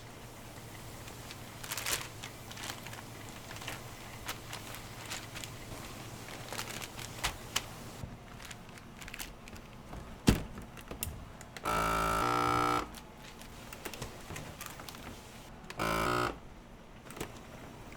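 Kitchen prep clatter: light taps and clicks of utensils and containers, a sharp knock about ten seconds in, then two flat electric buzzes, the first about a second long and the second shorter, from a kitchen appliance or signal.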